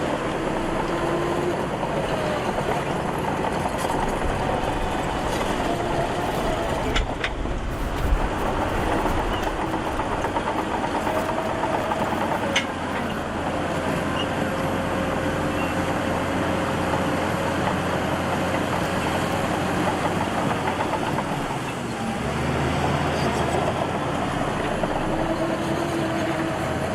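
Heavy diesel earthmoving machinery running steadily, its engine note drifting up and down, with a few sharp metallic clanks, two together about a quarter of the way in and one near the middle.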